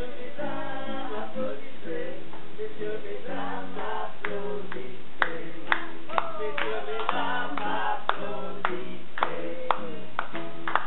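A small group of adults singing a song together. Hand clapping in time joins about four seconds in, roughly two claps a second.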